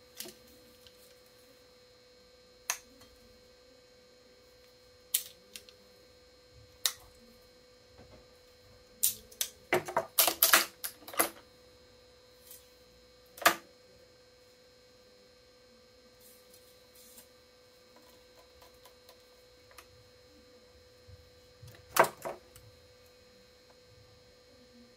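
Hands stringing a badminton racket on an electronic stringing machine: scattered sharp clicks and snaps from handling the string, clamps and frame, with a quick run of clicks about ten seconds in and a loud one about twenty-two seconds in, over a faint steady hum.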